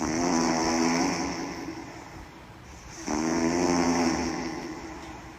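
Loud snoring: two snores about three seconds apart, each starting suddenly as a buzzing, pitched rattle that fades away over a couple of seconds.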